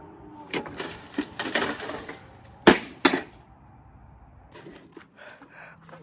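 Plastic toy washing machine being broken apart: a run of cracks and knocks, with the two sharpest cracks about two and a half and three seconds in, then a few faint clicks and rattles.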